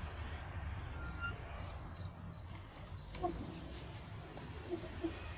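Faint outdoor background: small birds chirping now and then over a low steady rumble, with a light knock about three seconds in.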